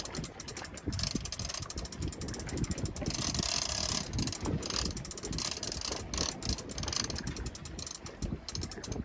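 Big conventional fishing reel being cranked against a hooked fish, giving a fast run of mechanical clicks, with a stretch of hiss about three seconds in.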